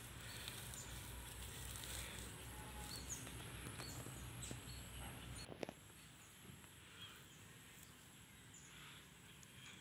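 Quiet outdoor ambience with faint, short high chirps scattered through it, and a low rumble that cuts off with a sharp click about five and a half seconds in.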